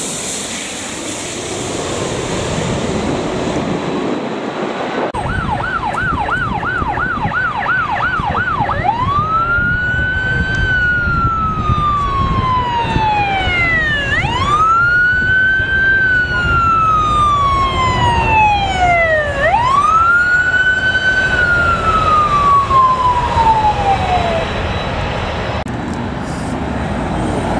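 An emergency vehicle siren starts about five seconds in. It first gives a fast yelp of two to three cycles a second for about four seconds, then switches to a slow wail that rises and falls three times, each sweep about five seconds long. It stops a few seconds before the end, over a steady background rumble.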